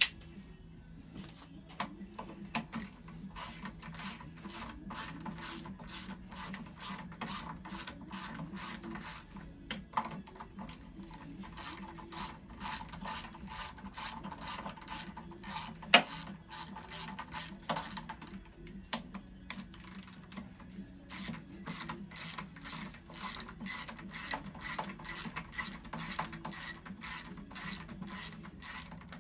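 Ratchet wrench and socket clicking in a steady run, a few clicks a second, as a nut is turned. One sharp metallic knock comes about halfway through.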